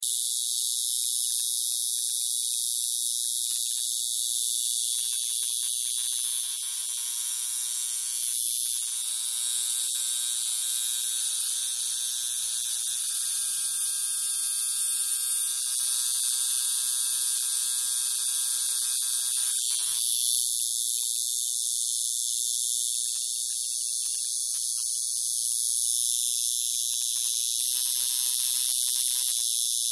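Handmade two-coil tattoo machine running, its electromagnetic coils driving the armature bar against the contact screw in a steady, bright electric buzz.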